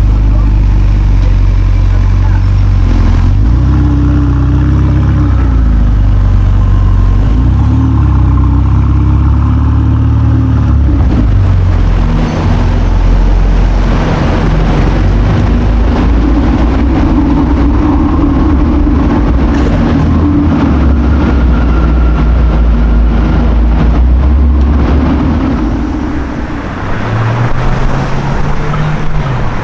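Sports car engine running in street traffic: a loud, deep exhaust rumble whose pitch rises and falls as it is revved, about three seconds in and again around eight seconds in, with another rise and fall near the end.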